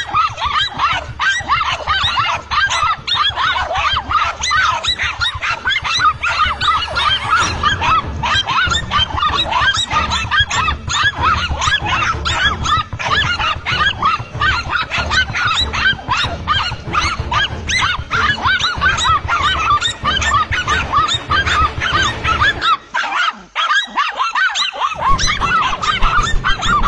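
Several dogs barking and yapping nonstop: rapid, high-pitched, overlapping barks, the agitated barking of dogs baiting a cornered animal. A low rumble runs underneath from about eight seconds in.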